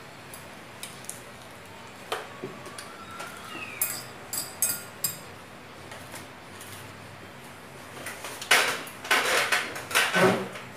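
Metal chopsticks clicking and clinking against a glass bowl, in scattered short taps. Near the end, louder scraping and clattering as the bowl is handled and lifted.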